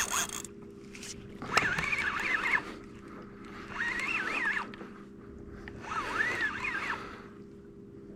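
Fishing reel working in three bursts of about a second each, roughly two seconds apart, with a wavering whine, as a big red snapper is fought up from the bottom. A steady low hum runs underneath.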